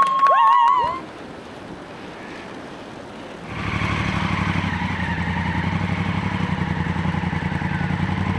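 A high whistle-like tone stops about a second in. From about three and a half seconds a motorcycle engine runs at a steady speed, a low even drone.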